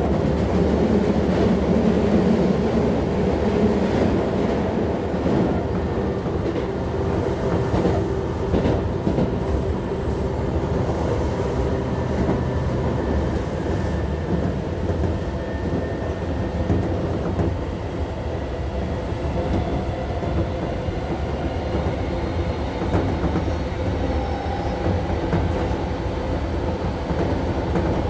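Keisei 3400 series electric commuter train running at a steady speed, heard from aboard: a continuous rumble of wheels on rail with faint steady motor tones.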